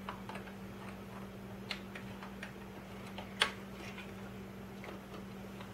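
Light, scattered clicks of small rotary-tool bits being handled in a clear plastic storage case, a few per second at most, with one sharper click about three and a half seconds in. A steady low hum runs underneath.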